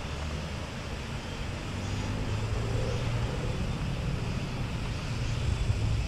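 Low steady rumble of wind on the microphone with a faint engine drone underneath, growing louder toward the end.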